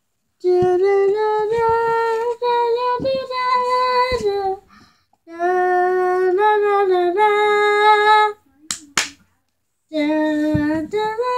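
A young girl singing a melody in three phrases, holding notes that step up and down in pitch. About nine seconds in, between phrases, there are two sharp clicks close together.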